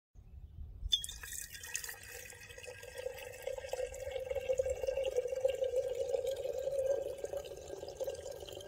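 A thin stream of water pouring into an open ceramic teapot, trickling and splashing steadily. It starts about a second in, grows louder through the middle, and eases off near the end.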